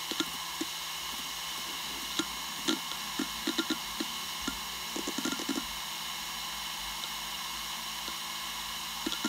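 Western Digital Raptor WD1600ADFD 10,000 rpm hard drive spinning with a steady whir, with irregular ticking from the heads seeking and a quick run of clicks about five seconds in.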